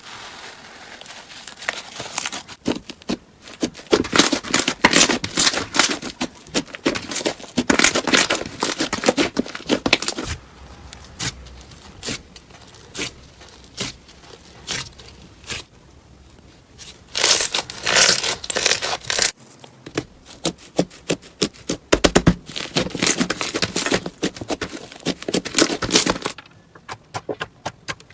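Crunchy slime being worked by hand, crackling with dense runs of small clicks and pops that come in bursts, with quieter spells in between.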